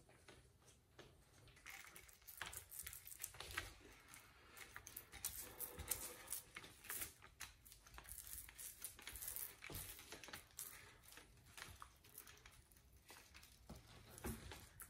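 Faint, irregular sticky crackling and ticking from a small paint roller working wet epoxy across a countertop.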